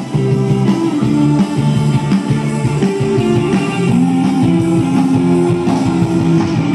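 Loud music playing over a festival stage's sound system, with held notes shifting in steps.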